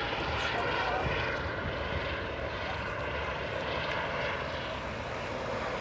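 Airbus H135 helicopter's twin turbine engines and rotors running, a steady noise without a break.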